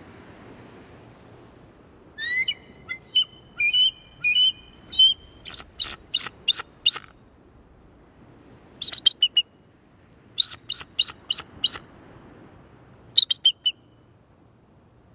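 An eagle calling: four bouts of high, piping call notes, each a quick run of short notes, with a faint hiss of background noise between them.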